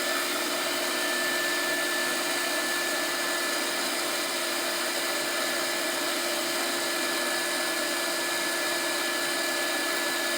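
Electric heat gun running steadily, a constant blowing hiss with a steady motor whine, warming the adhesive that holds an iPhone 5's home button so it can be pried out.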